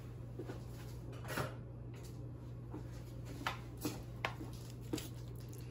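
A few faint clicks and knocks of kitchen utensils over a steady low hum, as a spoon is fetched.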